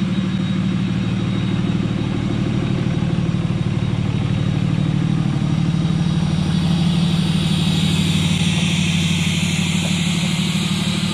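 2003 Dodge Ram's 5.9 Cummins inline-six turbo diesel, fitted with a BD Howler VGT turbo, running at a steady low speed as the truck rolls past.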